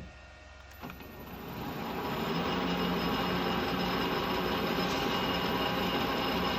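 Metal lathe facing a rusty cast-iron clutch backplate with a large carbide insert, cut dry. The tool bites about a second and a half in and the cutting noise builds into a loud, steady rasp with ringing tones; over the rough, uneven face it is not a continuous cut.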